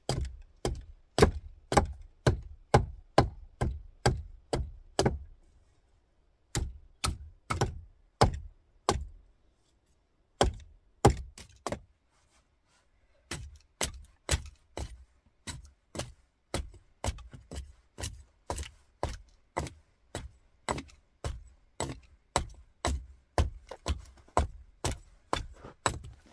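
Light one-piece hatchet striking the top of an upright split firewood log, shaving off thin kindling splinters: sharp wooden knocks about twice a second, in runs with short pauses between.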